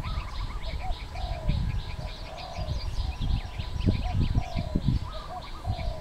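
Spotted dove cooing in short, low, repeated notes, over a busy run of quick high chirps from small birds.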